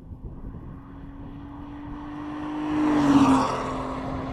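Ford Fusion Sport's 3.5-litre V6 with both rear mufflers deleted, driving past at speed: the exhaust note grows louder to a peak about three seconds in, then drops in pitch as the car goes by and moves away.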